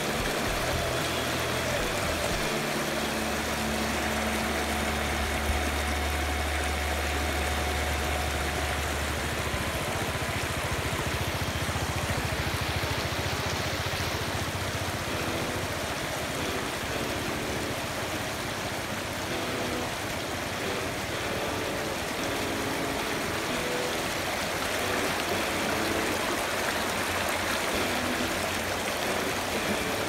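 Stream water rushing and splashing over rocks in shallow rapids: a steady, even rush of white water. A low steady hum, like a motor, runs underneath for about the first ten seconds and then stops.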